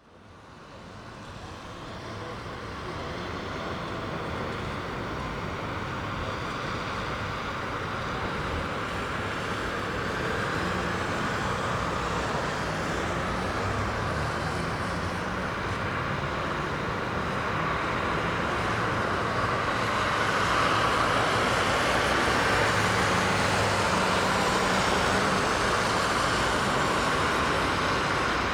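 Street traffic noise: a steady wash of road vehicles passing, fading in over the first few seconds. The low hum of engines comes and goes, and the traffic gets a little louder about two-thirds of the way in.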